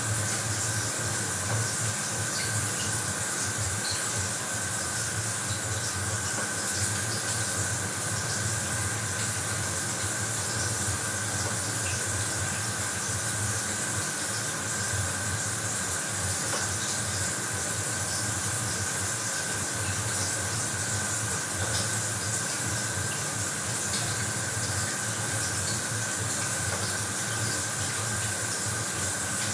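Bathroom shower running steadily, its spray hissing evenly without a break, with a faint steady high tone underneath.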